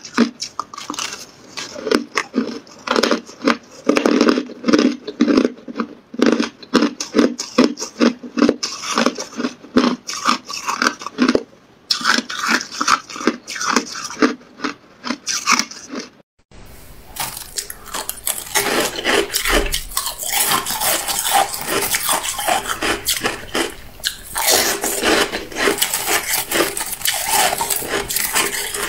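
Hard clear ice being bitten and chewed close to the microphone: rapid, loud crunches and cracks. About two-thirds of the way through, the sound cuts off abruptly and resumes as denser, continuous crunching and chewing.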